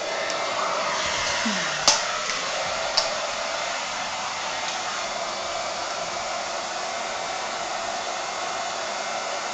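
Hand-held hair dryer blowing steadily, with two brief sharp clicks about two and three seconds in.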